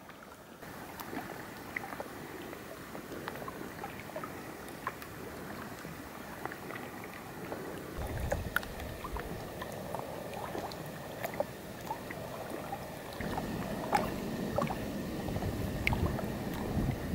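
Small waves lapping and sloshing against the lake shore and a half-sunken log, with many small irregular clicks and plops. A low rumble comes in about halfway through and grows louder near the end.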